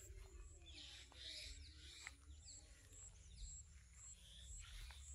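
Faint rural outdoor ambience: scattered short falling bird chirps, a thin high note repeating about twice a second, and a low rumble of wind on the microphone.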